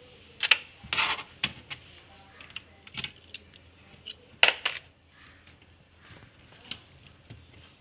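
Irregular sharp clicks and light metallic taps from a small screwdriver and loose screws being worked out of a laptop's plastic bottom case, the loudest about half a second, one second and four and a half seconds in.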